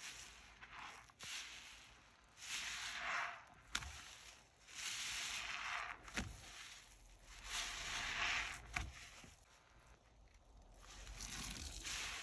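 Soap-soaked sponges squeezed in a gloved hand in foamy water: wet squelching swells about every two and a half to three seconds, with a few sharp clicks in between.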